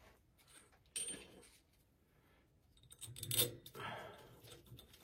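Small metal parts and tools being handled: a sharp clink about a second in, then a brief cluster of clinks and rattles a couple of seconds later.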